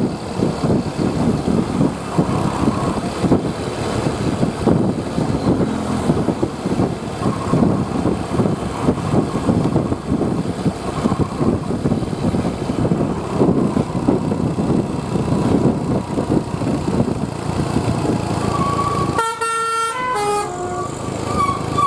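Heavy bus running with loud, rough road and engine noise; near the end its Basuri telolet horn plays a quick falling run of notes, then a held horn tone.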